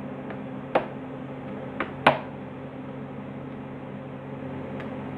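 Metal horizontal toggle clamps being snapped shut by hand, giving three sharp clicks: one under a second in, then two close together about two seconds in. A steady low hum runs underneath.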